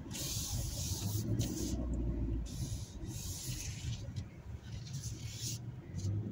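Cabin sound of a Hyundai Santa Cruz pickup rolling slowly over a dirt forest trail: a steady low engine and road rumble, with patches of hiss that come and go every second or so.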